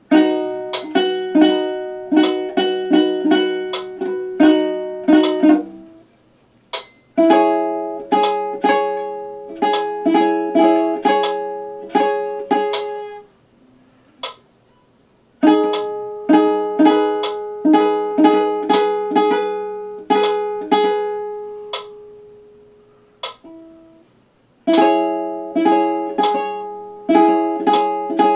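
Tenor ukulele being strummed through chords, several strums a second, in runs of a few seconds broken by short pauses.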